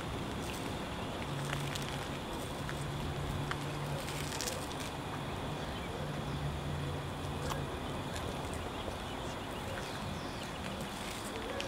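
Outdoor ambience: a steady haze of noise with a low engine hum that comes and goes, and scattered faint clicks.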